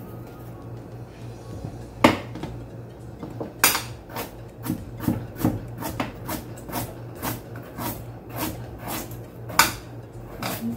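Kitchen knife chopping carrots on a cutting board: one knock about two seconds in, then a steady run of chops, about three a second, from about three and a half seconds on.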